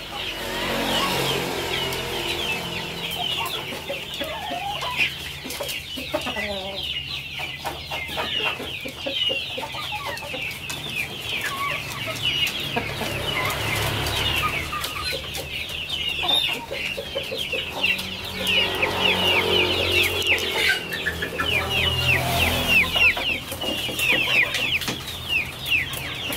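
Many chickens calling together: a dense, unbroken stream of short, high cheeping calls, with lower clucks mixed in now and then. It grows a little louder in the second half.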